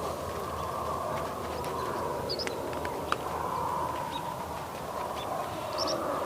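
Farm ambience: a steady rural background with a few short bird chirps and a couple of faint clicks.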